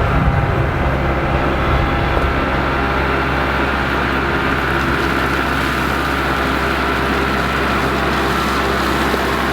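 Engine running steadily at a constant speed, with a steady whine above its low hum.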